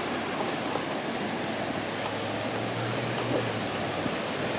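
Flowing river water, a steady even rushing.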